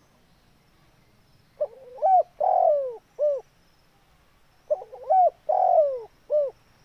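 Spotted dove (tekukur) cooing its song twice, about three seconds apart. Each phrase is a short note, a rising coo, a long loud falling coo and a short final coo.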